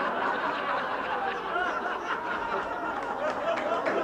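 A theatre audience laughing together at a comedian's punchline: a dense, many-voiced laugh at a steady level.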